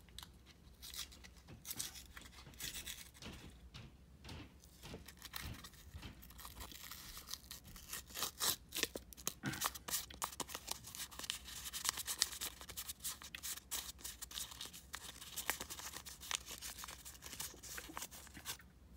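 Crumpled Sea-Monkeys packet crinkling and rustling in the hands as it is squeezed and shaken out, a run of fast, irregular crackles that is busiest in the middle.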